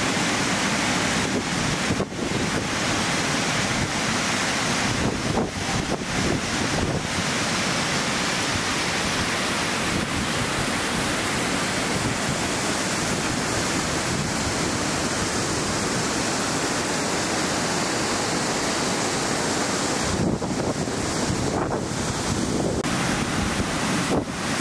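Mountain waterfall cascading down a rocky gully: a steady rush of falling water, with wind on the microphone.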